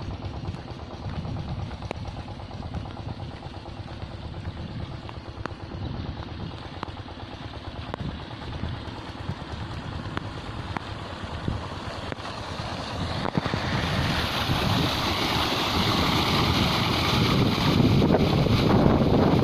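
Fieldmarshal FM908 diesel pumpset running, with wind on the microphone; from about thirteen seconds in the rush of water pouring from the pump's outlet pipe into the field channel grows loud and takes over.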